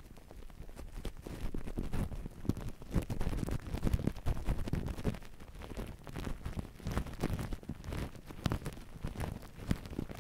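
Fingertips dabbing and squishing white spray foam on a plastic-wrapped microphone at close range: dense, irregular crackling and popping, with soft squelches.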